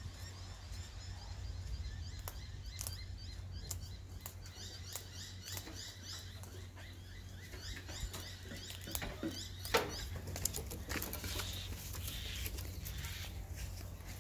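Scattered sharp clicks and crackles, a sulphur-crested cockatoo crunching a biscuit in its beak, denser from about nine seconds in. Small birds twitter with quick, high chirps throughout.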